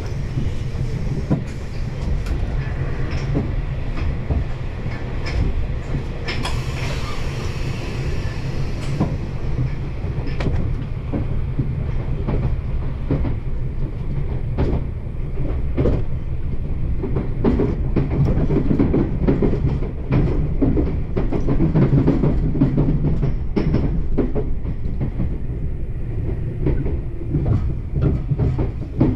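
Meitetsu 1200 series electric train running, heard from inside the car: a steady low rumble of wheels on rail with repeated clicks as the wheels pass rail joints. About seven seconds in there is a brief rush of higher-pitched noise, and the rumble grows somewhat heavier in the second half.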